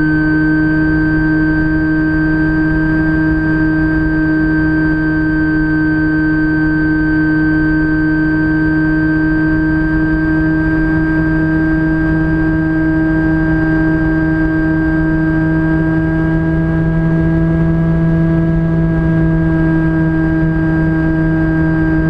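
Electric pusher motor and propeller of a Phantom FX-61 flying wing running at a steady cruise, heard from the plane's onboard camera, with a slight rise in pitch about three quarters of the way through. Low wind rush from the airflow over the camera runs under it.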